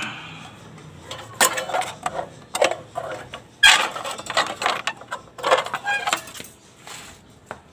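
Irregular metal clinks, knocks and rattles from a thin welded steel-rod brace being handled and held against the front of a motorcycle, several sharp strikes spread across a few seconds.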